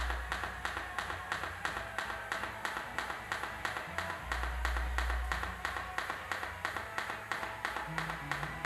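Pulsed TIG welding arc on stainless steel pipe, ticking steadily about four times a second as the current pulses.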